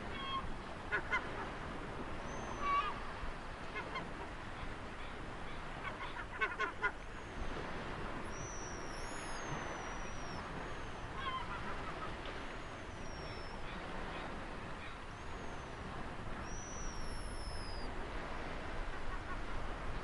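Steady wash of ocean surf with birds calling over it: short honking calls in the first seconds and around the middle, and high, thin calls that fall in pitch repeating through the middle and latter part.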